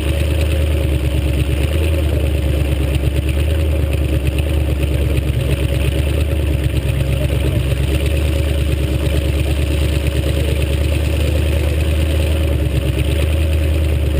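Demolition derby car's engine running steadily with a deep, low rumble, picked up by a camera mounted on the car's roof.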